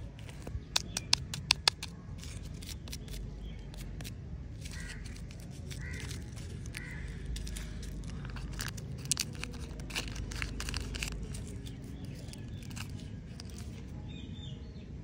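Fingertips tapping on plastic-wrapped lollipops with a run of sharp clicks, then a plastic lollipop wrapper crinkling as it is torn and peeled open.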